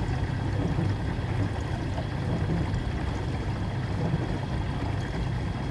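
Dishwasher running through its wash cycle: a steady low hum from the pump with water spraying and sloshing inside.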